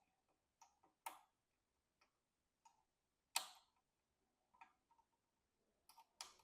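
Faint scattered clicks and taps of a plastic front-panel header connector and its cable being pushed and fiddled at a motherboard pin header, the loudest about halfway through. The connector won't seat because it is turned the wrong way round.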